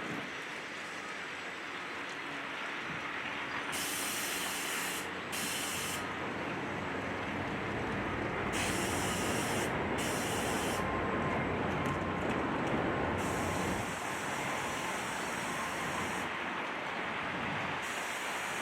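Steady rumbling noise of demolition work with an excavator, broken several times by stretches of hissing that start and stop sharply.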